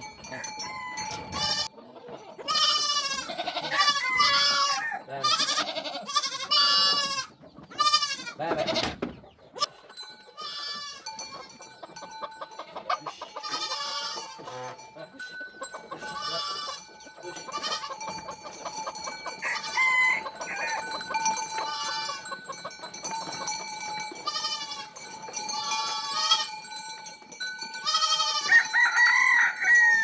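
Goats bleating repeatedly, a crowded run of quavering calls in the first several seconds, then scattered bleats; a rooster crows near the end. Faint steady high tones sound under the later part.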